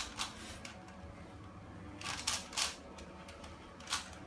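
Plastic clicking of a twisty puzzle cube being turned by hand: a few short, sharp clicks, one at the start, a pair about two seconds in and another near the end.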